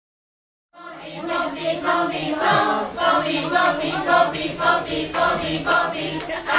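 A group of young voices singing a lively song together, starting under a second in, with hand claps marking the beat.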